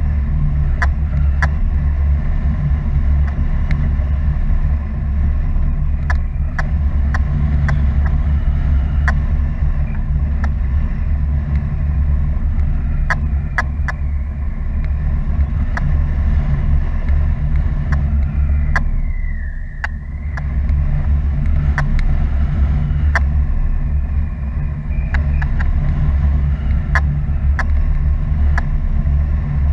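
Airflow buffeting the microphone of a camera carried through the air by a paraglider in flight: a loud, steady low rumble with scattered sharp ticks, easing briefly about two-thirds of the way through.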